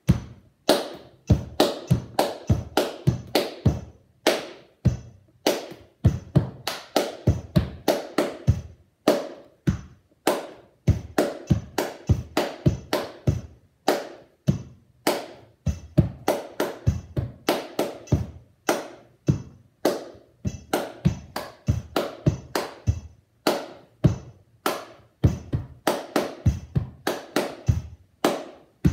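Hand claps played as a rhythmic percussion warm-up drill at 100 bpm: quick runs of sharp claps in a steady pulse, broken by short gaps.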